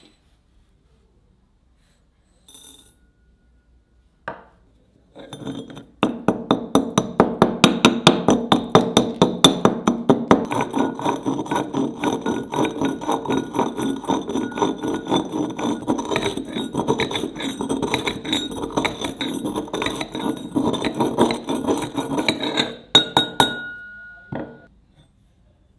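Hammer striking steel in a rapid, even run of blows, about four or five a second, each with a metallic ring. The run starts after a few separate knocks and stops near the end.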